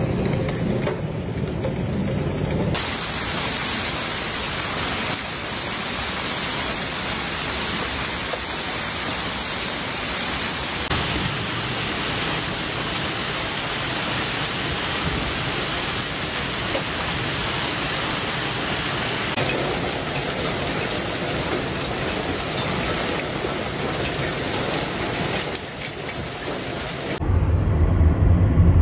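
Heavy hailstorm: hailstones and rain pelting down on water and pavement in a dense, steady hiss. Near the end it gives way to a vehicle's low road rumble.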